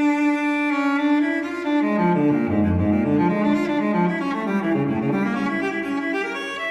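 Background music: a slow melody on low bowed strings, like a cello, moving from note to note.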